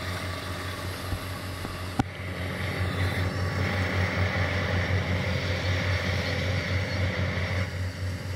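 Rice combine harvester running as it cuts through the paddy: a steady diesel engine drone with a strong low hum. A higher whir joins from about three seconds in until near the end, and there is one sharp click about two seconds in.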